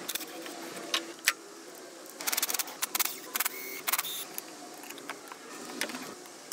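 Ratchet and socket working on intake manifold bolts: scattered sharp clicks and a couple of short runs of rapid clicking, the manifold being unbolted for removal.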